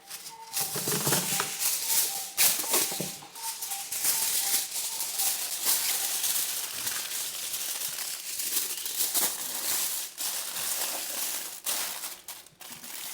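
Aluminium foil being crinkled and folded around a whole fish, a continuous dense crackle.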